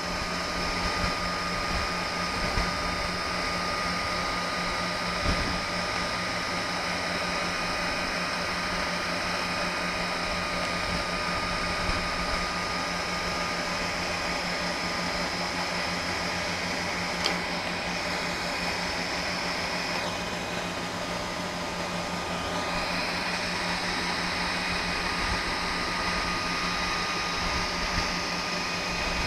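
A standing black MRCE Dispolok electric locomotive running its cooling blowers and electrics: a steady whirring hum with constant whining tones. About two-thirds of the way through, a high whine shifts and glides upward.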